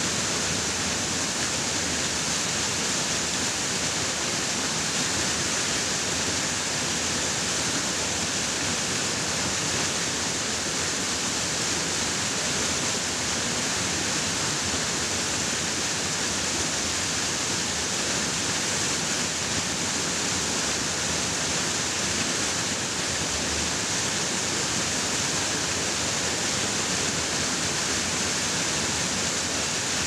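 Rushing water of a waterfall or stream, a steady, even rush that does not change, heavy in hiss.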